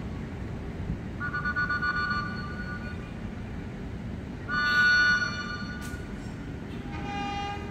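Train horn sounding three blasts: two two-note chords of about a second or more, the second one louder, then a shorter, lower single note near the end, over the steady low rumble of the station.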